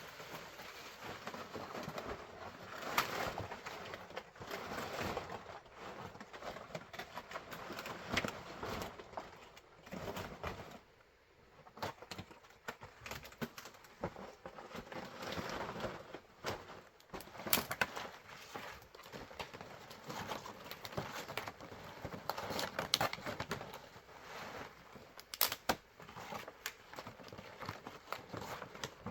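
Irregular clicks and knocks over steady rustling and crackling, with a brief lull about eleven seconds in.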